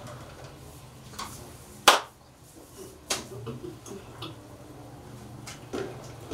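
A few sharp clicks and knocks of hard kitchenware being handled, the loudest about two seconds in and another a second later, over a steady low hum.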